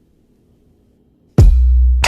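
Background electronic music: near silence, then about one and a half seconds in a beat starts with a hard-hitting deep bass drum.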